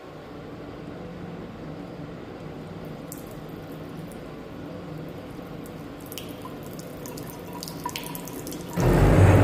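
Water running from a faulty tap with a faint steady hum. Near the end a loud pitched buzzing drone starts suddenly: the tap's fault noise, which sounds like a drill.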